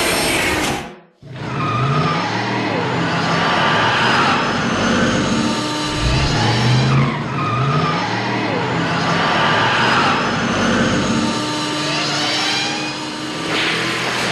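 Film sound effect of the DeLorean car driving hard: its engine pitch rises again and again as if accelerating through the gears, with a noisy hiss like tyres over it. It follows the tail end of a train effect that cuts out about a second in.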